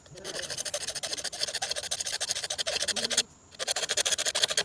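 Rapid, evenly repeated scraping strokes, with a brief pause a little after three seconds in.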